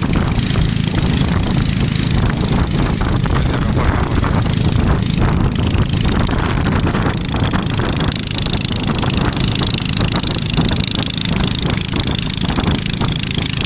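Small engine of a motorized snow tug (motosobaka) running steadily under way, towing a sled over snow, with a constant rush of travel noise and frequent small jolts.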